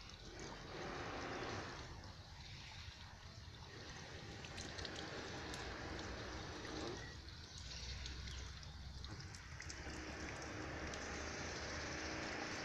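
Water from a small fountain pump's jet splashing and trickling back into a shallow cement pond. The splashing fades and comes back twice as the jet's strength changes.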